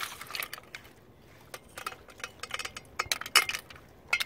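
Cooked mussel shells clicking and clinking against each other and against a stainless steel bowl as they are picked out and pried open by hand. The sharp clicks come irregularly, with a cluster at the start, a denser run through the middle and a pair near the end.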